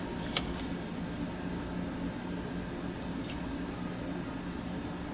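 A paper sticker being peeled and pressed onto a planner page: a sharp click about half a second in and a faint brush of paper about three seconds in, over a steady low hum.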